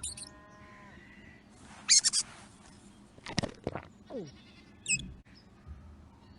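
Mouse squeaks played back: short bursts of very high-pitched squeaks, the first right at the start and a few more scattered through the next five seconds.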